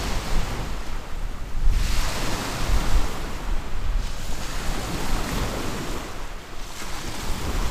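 Small sea waves breaking and washing up a pebble beach, swelling and easing as each one comes in. Wind rumbles on the microphone underneath.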